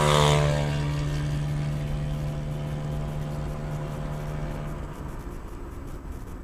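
A vehicle engine running with a steady hum. It is loudest in the first half-second, then eases off, and the hum drops away about five seconds in.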